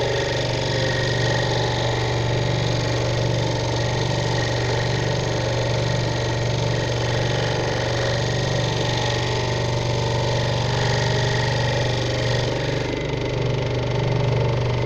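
Scroll saw running with its fine, tiny blade cutting a small workpiece: a steady motor hum with a constant low drone and the buzz of the blade in the cut.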